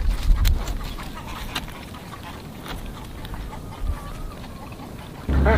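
Faint scattered clicks and taps, then near the end a steady low hum sets in and ducks start quacking in a run of short calls.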